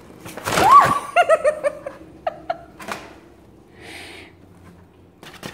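Paper bag rustling, then a short burst of quick, high-pitched giggling laughter.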